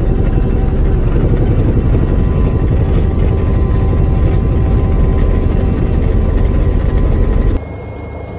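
Helicopter rotor and turbine engine running, heard from inside the cabin: a loud, steady, low rumble with the fast pulsing of the rotor blades. Near the end the sound drops suddenly to a quieter, thinner level.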